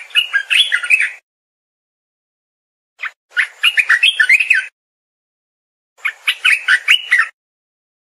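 Asian red-eyed bulbul song: three short phrases of quick, rising and falling whistled notes, each lasting about a second and a half, with dead silence between them. It is a recording of the song played back.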